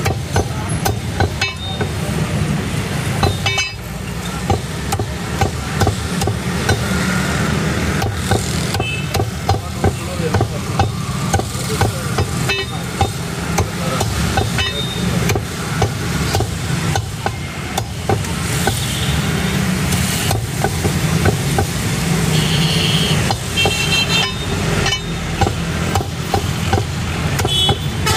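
Heavy meat cleaver chopping raw chicken on a thick wooden chopping block: sharp chop after chop, over a steady low background rumble.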